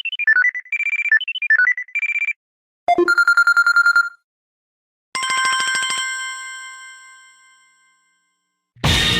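Cubot X6 smartphone alert tones played one after another: a quick little melody of electronic beeps, then a rapid pulsing tone for about a second, then a single bell-like chime that rings out and fades away. A music ringtone starts just before the end.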